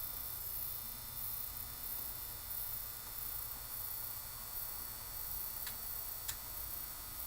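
Soldering gun's transformer humming steadily while the trigger is held to heat the tip, with two faint ticks near the end.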